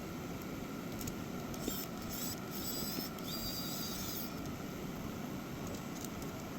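Steady background hiss, with a stretch of brief high-pitched whirring and squeaking plus a couple of light clicks from about two to four seconds in, as a small electric screwdriver drives screws back into a phone's frame.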